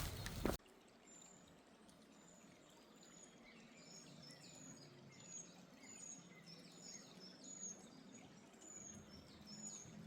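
A few footsteps cut off suddenly just after the start, then faint woodland birdsong: a small bird repeating short, high, downward chirps, roughly two a second, over a soft steady hiss.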